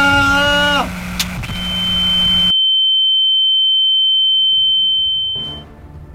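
A man's drawn-out yell breaks off about a second in, followed by a sharp click. Then a single steady high-pitched electronic tone sounds for about four seconds and fades away.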